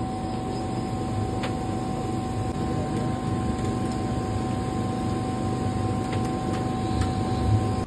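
A machine running steadily: an even rushing noise over a low hum, with two steady whining tones and a few faint clicks.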